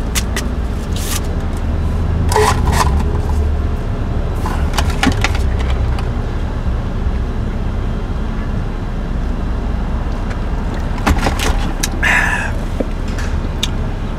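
Car engine idling, heard inside the cabin as a steady low rumble, with scattered light clicks and scrapes of things being handled.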